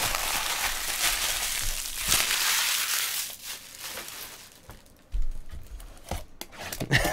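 Trading-card packaging being crinkled and crushed by hand, a dense crackling rustle for about three seconds that then dies away. This is followed by a couple of low knocks as a cardboard card box is handled on the table.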